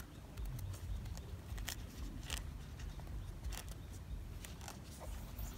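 Faint rustling and crinkling of a large green leaf being folded and pinched by hand around a pole, with a few short, sharp crackles scattered through it over a low rumble.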